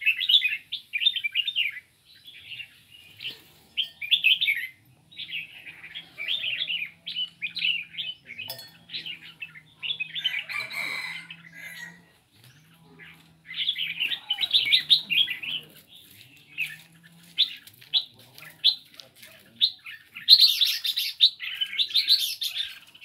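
Several caged songbirds chirping and singing in quick, repeated phrases, some calls overlapping. A brief noisy rustle about halfway through and a louder one near the end break in over the birdsong.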